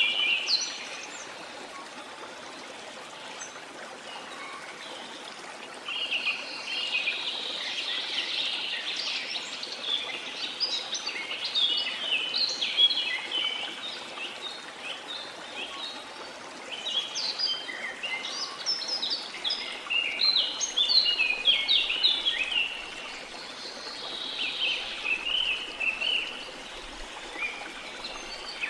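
Birds chirping and singing in busy stretches of several seconds, over a steady rush of running water; the first few seconds hold only the water.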